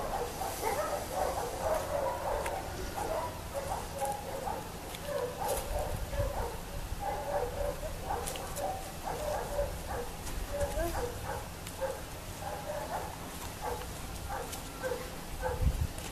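Dog barking and yelping in many short, repeated calls.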